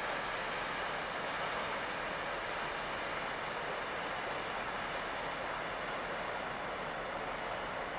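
Steady rushing of water from a passing cargo ship's bow wave, an even hiss with no distinct engine note.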